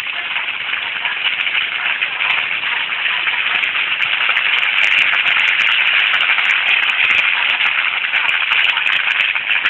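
Open fire burning through vegetation: a dense, steady crackle with frequent sharp pops, growing a little louder about halfway through.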